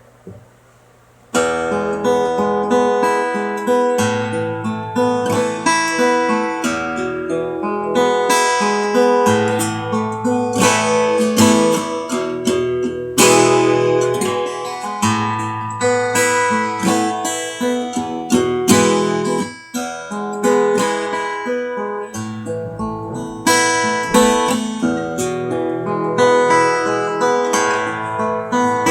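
Gretsch G3500 Rancher acoustic guitar with Martin SP bronze 12-gauge strings, played solo. Chords are strummed and picked notes ring out, starting about a second in.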